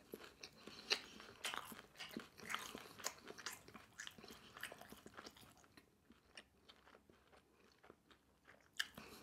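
Faint, close-up chewing of a mouthful of fried, sauce-coated sweet and sour pork: wet crunching and small mouth clicks that thin out after about five seconds.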